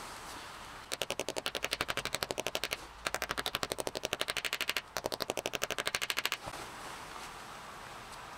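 Rapid, evenly spaced taps on a stuck motorcycle clutch cover, about ten a second, in three runs with short breaks. The cover is being knocked to work it loose because it won't come away.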